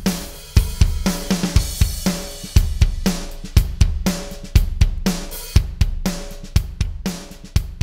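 Drum kit groove of kick, snare, hi-hats and cymbals playing a steady beat, with a crash cymbal wash about a second and a half in. It runs through the Empirical Labs Arousor compressor plugin on the drum bus, set hard at a 20:1 ratio.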